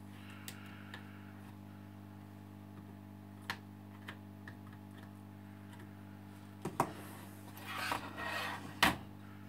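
Steady low hum with a few faint ticks, then, about seven seconds in, handling noise as the camera is moved: two sharp knocks, a rubbing scrape and a louder knock near the end.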